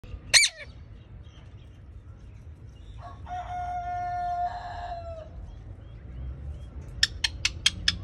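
Rose-ringed parakeet calling: one loud sharp screech near the start, then a rapid run of five short shrill calls near the end. In between comes a long, steady-pitched call lasting about two seconds that falls away at its end.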